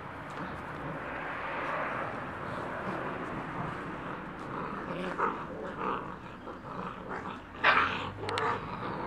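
Five-week-old Great Pyrenees puppies growling at play, a rough, continuous growl that breaks in the second half into short separate outbursts, the loudest near the end.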